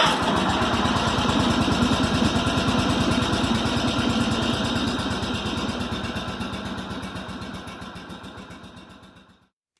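A small engine running steadily with a fast, even firing beat. It starts abruptly and fades out over the last few seconds.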